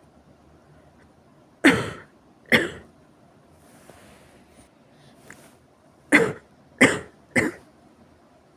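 Severe coughing in two bouts: two coughs about a second apart, a breath in, then three more coughs in quick succession.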